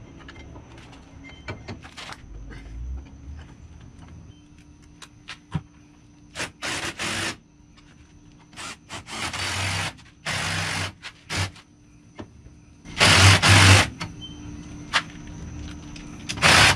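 A handheld power tool runs in short bursts, about five times, as the caliper mounting bolts on a Dana 60 rear disc brake conversion are driven in. Small clicks and clinks of hardware fall between the bursts.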